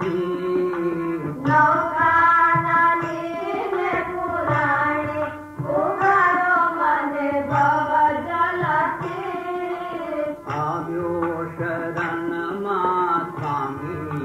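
Background music in an Indian classical style: a melody line that slides between notes, over a drum accompaniment.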